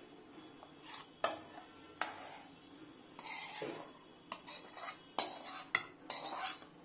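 Steel spoon scraping and clinking against a metal pan as thick curry is scooped out onto a plate: soft scrapes broken by a few sharp clinks.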